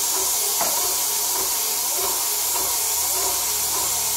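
Airless paint sprayer gun spraying paint at 2000 psi through a wide 515 tip, a steady loud hiss. A low hum joins about three seconds in.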